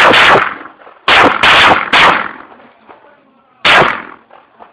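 Five 9mm pistol shots, each with a short ringing tail. One comes at the start, a quick string of three follows about a second in, and a last one comes near the end.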